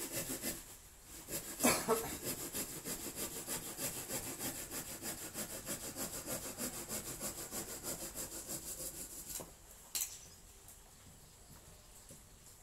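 Small hand saw cutting through a woody cassava stem in quick back-and-forth strokes, about three or four a second. There is a short pause and a sharp knock about two seconds in. The sawing stops near the end with one more knock.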